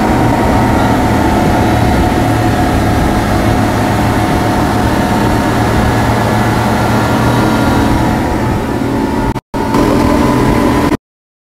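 Twin outboard motors of a passenger speedboat running steadily at speed, with water and wind rushing past. The sound cuts out suddenly twice near the end.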